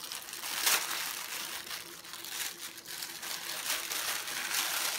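Tissue-paper wrapping crinkling and rustling as hands unfold it from around a package, a continuous run of small crackles.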